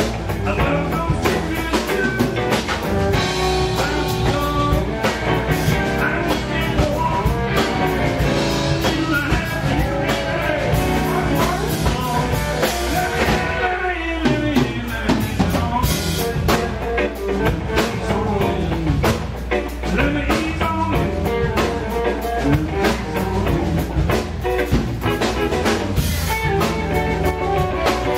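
Live blues band: an electric guitar plays a lead line full of bent notes over a steady drum kit beat.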